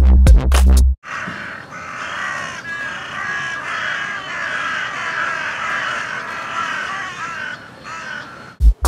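A flock of carrion crows cawing, many calls overlapping. Electronic music with a heavy bass plays for about the first second, stops, and cuts back in near the end.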